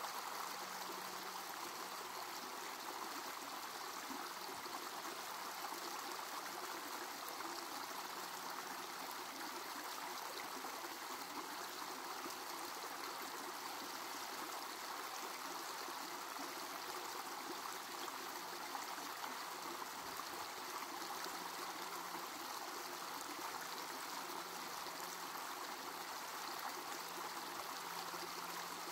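Shallow rocky creek running steadily, a continuous trickle of water over rocks.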